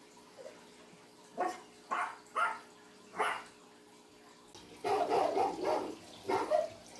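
Dog barking: four short barks spread over about two seconds, then a louder, longer run of barking about five seconds in.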